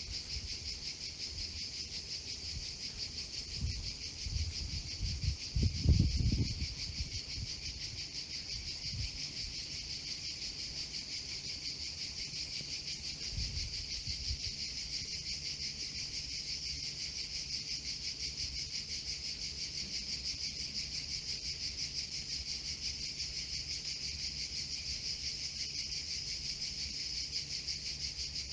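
Steady, high-pitched chorus of chirping insects, pulsing rapidly and evenly. A few low thumps come about four to six seconds in, the loudest moment, and once more briefly near the middle.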